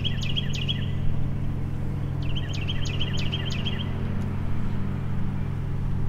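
A songbird sings two short phrases of rapid chirps, the first ending about a second in and the second about two seconds later. Underneath runs the steady hum of a distant lawn mower engine.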